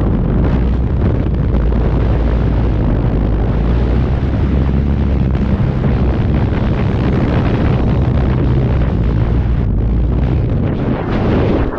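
Skydiving freefall wind rushing and buffeting hard on the camera microphone: a loud, steady rumble.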